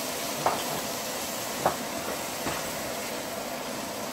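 Chopped tomatoes and onions sizzling steadily in hot oil in a pan, with three sharp knocks of a spatula against the pan, about a second apart, as the mixture is stirred.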